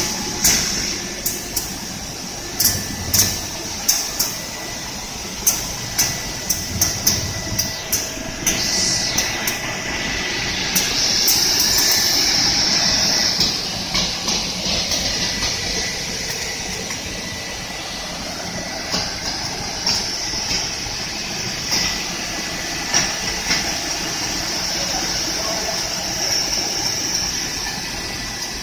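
Three-head wide belt sander running, a steady machine noise with a high hiss, broken by many sharp clacks and knocks that come thickest in the first half.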